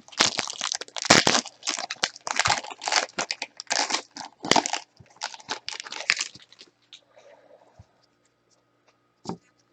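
Plastic wrapper of a football trading card pack crinkling and tearing as it is opened by hand, in quick bursts that die down after about six seconds, with a single click near the end.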